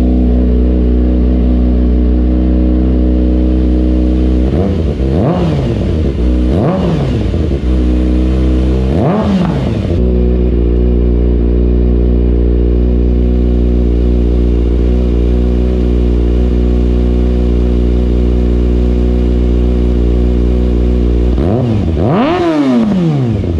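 Kawasaki ZX6R 636 inline-four idling steadily through an M4 slip-on exhaust with the catalytic converter removed. It is revved in three quick blips about five, seven and nine seconds in, then one longer, higher rev near the end.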